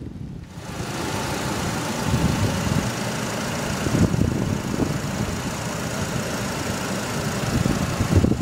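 2007 Chevrolet Colorado's 2.9-litre inline-four engine idling steadily, heard close up under the open hood.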